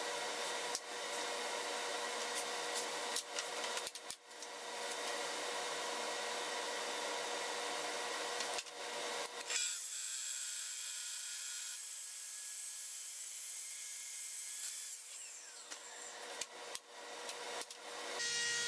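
Track saw running along a Festool guide rail, trimming the edge of a hardwood end-grain cutting board: a steady, fairly quiet whir with a held hum, broken by several abrupt cuts. About halfway through it changes to a thinner, higher hiss.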